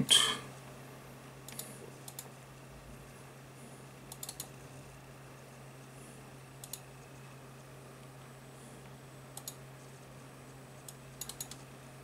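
Scattered faint clicks from working a laptop computer, some single and some in quick pairs or short runs, over a faint steady hum.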